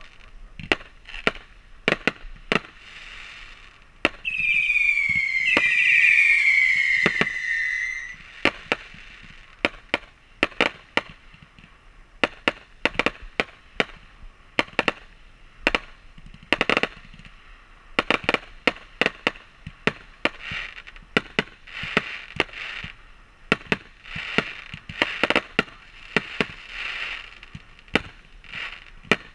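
Fireworks going off in a quick, irregular string of sharp bangs with crackling between them. From about four to eight seconds in, two whistling fireworks sound together, each falling in pitch, louder than the bangs.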